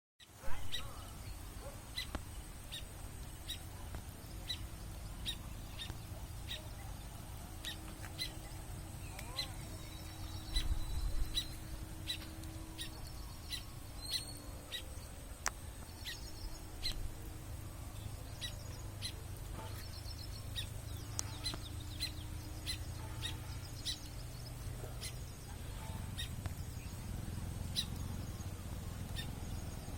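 A small bird chirping steadily, short high chirps repeated about once or twice a second, with a few quick trilled phrases among them, over a low rumble.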